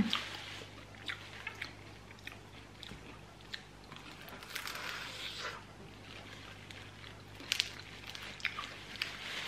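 Biting into and chewing a freshly fried piscok meler, a banana-and-chocolate roll in a crisp spring-roll wrapper: scattered faint crisp crunches, with a louder crackly spell about halfway through.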